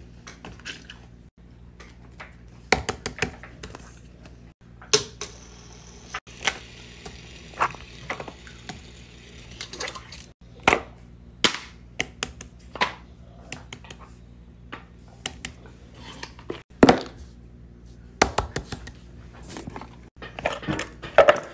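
Plastic and silicone fidget toys, such as a simple dimple, a pop-it and small balls, being handled and set down on a paper-covered table. They make irregular sharp clicks, taps and knocks over a low steady hum.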